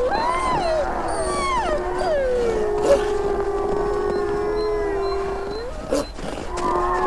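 A chorus of wolves howling, several overlapping voices. Some howls glide up and fall away in the first two seconds while one long howl is held steady for several seconds. The howling drops off briefly near the end with a click, then starts again.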